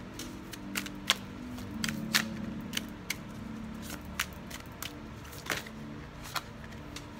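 Tarot deck being shuffled by hand: a rapid, irregular run of sharp card clicks and slaps.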